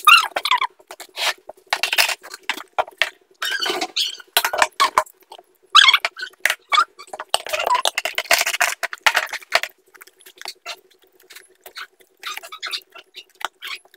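A person eating rice and sautéed vegetables by hand, close to the microphone: chewing and lip smacking, heard as many small clicks and smacks in quick succession. A faint steady hum runs underneath.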